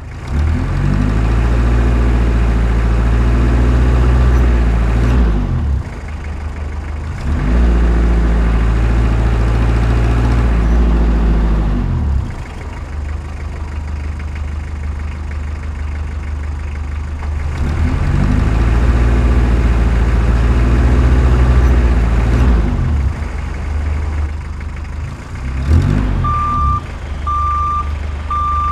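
Heavy diesel construction-machine engine sound, revving up and settling back about three times. Near the end a truck's reversing beeper starts, beeping about once a second.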